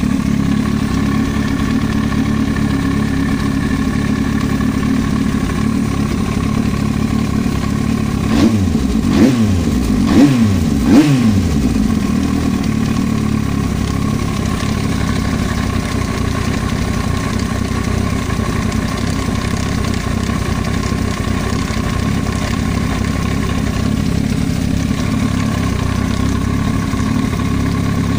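Yamaha YZF-R1 inline-four engine idling steadily, blipped three times in quick succession partway through, each rev rising and dropping back to idle. The owner hears a knock from the cylinder head.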